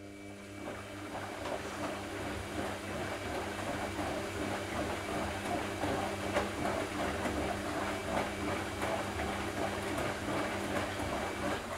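Front-loading washing machine running: a steady motor hum under a dense rattling rumble from the drum. It swells up at the start and cuts off abruptly near the end.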